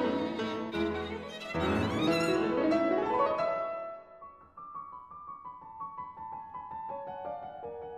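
Background instrumental music led by a violin: full and loud at first, thinning to a quieter, sparser melody about halfway through.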